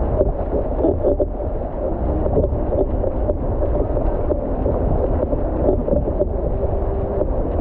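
Water rushing and churning against the hull of an outrigger canoe as it rides a motorboat's wake, with wind buffeting the microphone as a low rumble.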